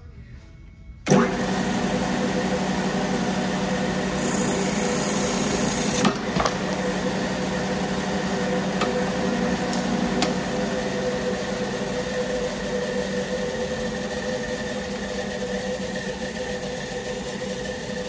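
Electric hydraulic-hose cutoff saw switched on about a second in, its motor starting abruptly and running with a steady hum. From about four to six seconds in, the blade cuts through 1/2-inch R17 rubber hydraulic hose with a loud hiss, with a sharp click as it finishes. The motor then runs on.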